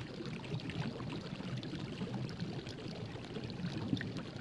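Liquid bubbling and fizzing: a steady watery hiss with many small scattered pops.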